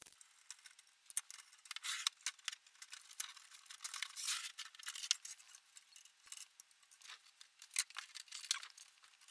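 Faint, scattered clicks, scrapes and rattles of hands handling the opened receiver's metal chassis and circuit boards.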